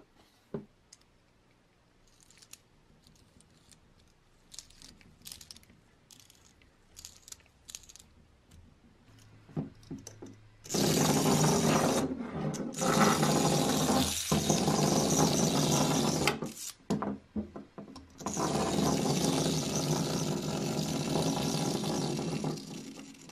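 Restored motor mechanism of a 1940s JEP toy speedboat running with a loud, steady whir of spinning gears. It starts about halfway through, stops for a moment, then runs again. Before it come light clicks and ticks from the mechanism being handled.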